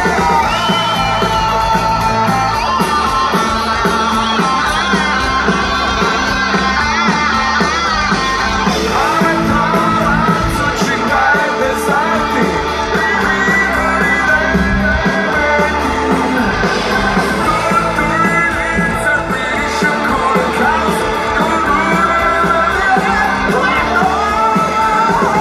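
Rock band playing live through a large outdoor PA, heard from among the audience: a male lead singer over electric guitar, drums and keyboards, loud and steady.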